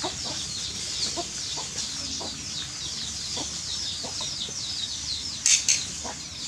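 Chickens clucking now and then over a steady run of quick, high chirps from small birds. Two short, sharp sounds come about five and a half seconds in.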